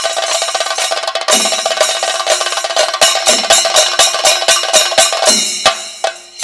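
Chenda drums beaten with sticks in thayambaka over steadily ringing ilathalam cymbals. A dense roll gives way about a second in to heavy, evenly spaced strokes, and the playing thins out and drops in level near the end.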